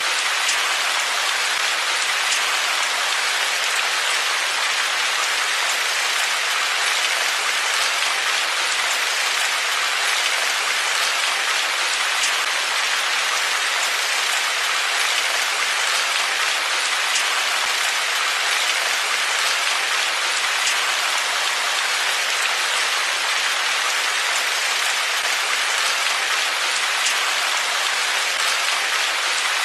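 Steady rain falling: a dense, even hiss of drops with faint scattered ticks of individual drops, unchanging throughout.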